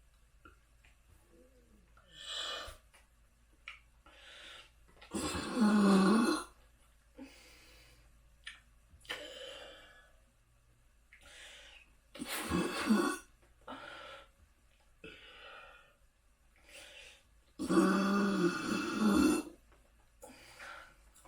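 A person burping: three long, loud burps about five, twelve and eighteen seconds in, the last the longest, with shorter, quieter throat sounds between them.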